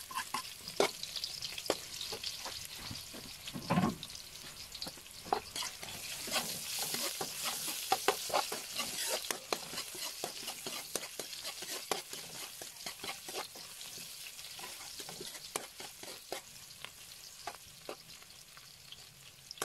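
Sliced onions frying with garlic and ginger in hot oil in a wok, a steady sizzle that swells in the middle and dies down near the end. Through it, a spatula scrapes and clicks against the pan as the onions are stirred.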